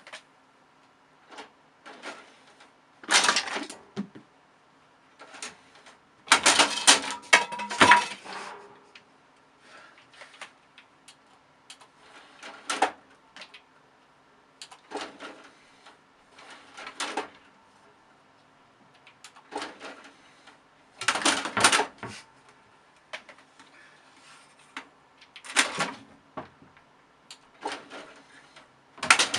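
Sporadic clicks, knocks and clatters at irregular intervals, with louder bursts of clattering about 3 seconds in, between 6 and 8 seconds, and around 21 and 26 seconds.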